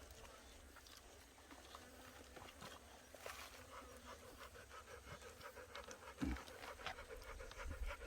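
A dog panting as it eats, with quick small clicks of chewing. There is a soft low thump a little past six seconds in.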